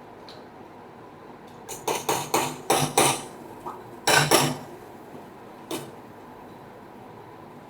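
Metal spoon knocking and clinking against a cooking pot: a quick run of strikes about two seconds in, two more around four seconds, and a single one near six seconds.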